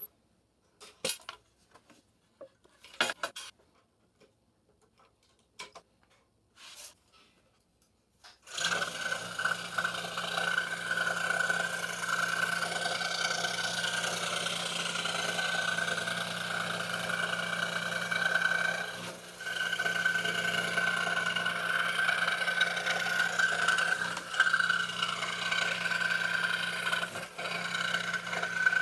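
A few scattered clicks and knocks with quiet between them, then about eight seconds in a scroll saw starts and runs steadily, its reciprocating blade cutting the inner fretwork of a wooden panel.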